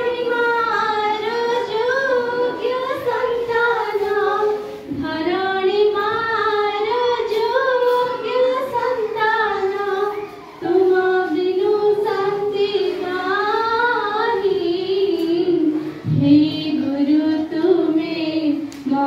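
Schoolchildren singing a song together, in long phrases with brief pauses for breath about every five seconds.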